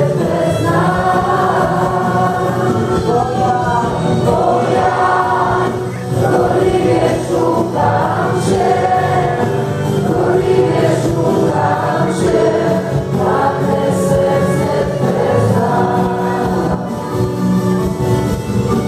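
A large congregation singing a praise-and-worship song together.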